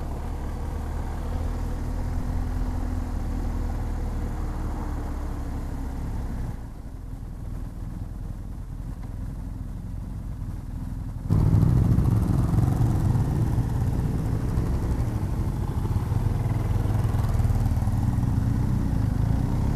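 BMW R1250 GS Adventure's boxer-twin engine running as the motorcycle rides slowly and comes to a stop. About eleven seconds in, the engine sound suddenly steps up and gets louder, and it stays that way to the stop.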